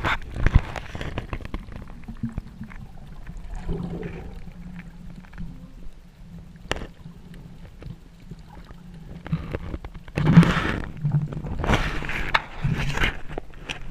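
Muffled underwater sound of water moving around the camera, with gurgling and sloshing over a low steady hum. There are scattered light clicks, and two louder rushing, gurgling bursts come near the end.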